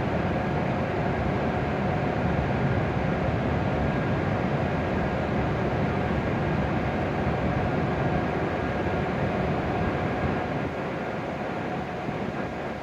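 W7-series Shinkansen train running at the platform: a steady rumble with a faint steady whine over it, a little quieter from about ten seconds in.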